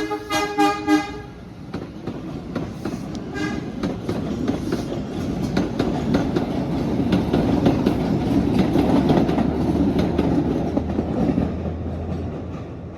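MBTA Blue Line train's horn sounding a rapid series of short toots, stopping about a second in, with one more brief toot a few seconds later. Then the train is heard rolling on the rails, wheels clicking over rail joints, its running noise building and then easing near the end.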